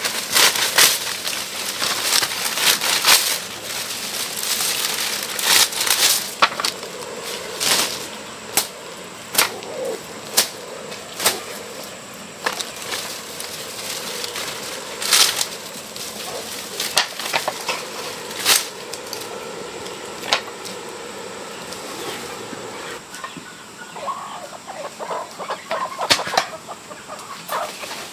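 Chickens moving about, with wing flaps and irregular sharp rustles and knocks throughout, and a short burst of clucking near the end.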